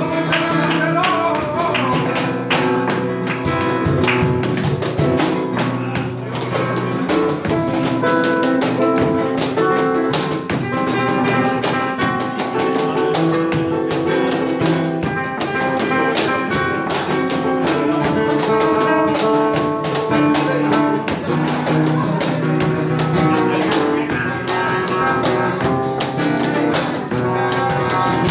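Live flamenco: a flamenco guitar strumming and picking, with a cajón and hand-clapping (palmas) keeping a steady rhythm of sharp strokes.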